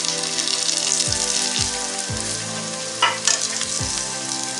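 Hot oil sizzling in a kadai as Kashmiri chilli powder is stirred into fried ginger-garlic paste and whole spices with a spoon, with a short scrape of the spoon against the pan about three seconds in.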